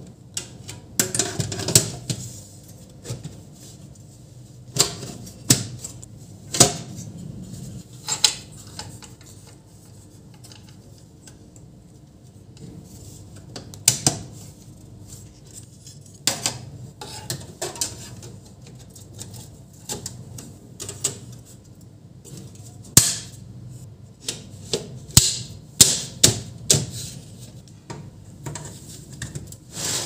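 Irregular metal clicks, clanks and knocks of a desktop computer's sheet-steel case parts being handled and fitted together, among them the drive cage holding a hard drive, over a low steady hum.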